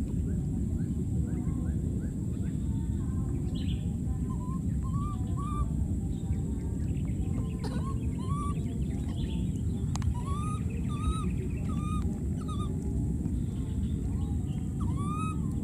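Baby monkeys giving short, arched, high calls, a handful in small runs with pauses between, over a steady low rumble.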